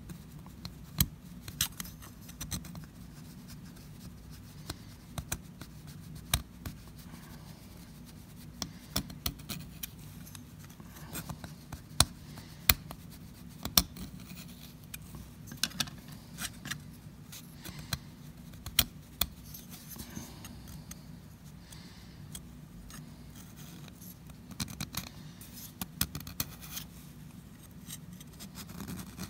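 Small metal tool scraping and clicking in the ring groove of a Jonsered 625 chainsaw piston, in short, irregular strokes: the groove is being dressed so the piston ring slides through without hanging up. A low, steady hum runs underneath.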